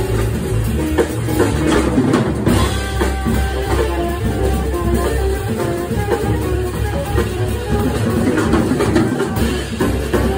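Live jazz: a tenor saxophone plays a melodic line over a busy drum kit, with a steady low bass underneath.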